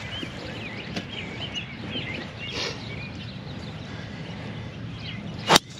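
Small birds chirping over steady low outdoor background noise, then near the end a single sharp crack of a golf club striking the ball.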